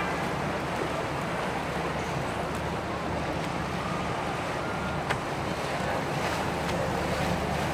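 Boat motors running steadily with water noise and wind buffeting the microphone. There is a short knock about five seconds in.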